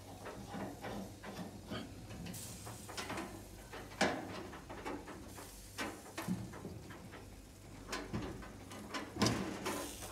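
Metal tongs clinking and scraping against a rotisserie spit and oven tray as a roasted rabbit is lifted off the spit, with a sharp clank about four seconds in and another near the end.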